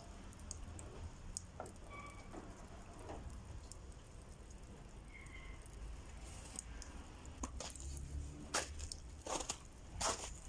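Low steady rumble with scattered small clicks and knocks, a few louder ones about eight to ten seconds in, as a ceramic tile is handled.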